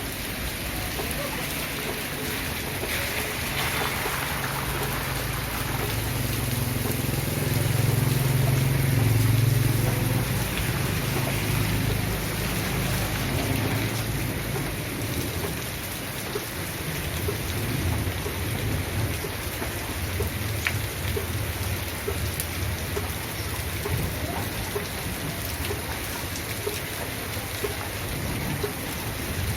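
Steady rain falling, with a long low rumble of thunder that builds a few seconds in, is loudest about a third of the way through, and dies away by the middle.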